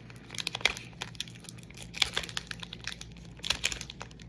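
Foil Pokémon booster pack wrapper crinkling and trading cards being handled, in three short bursts of crackling.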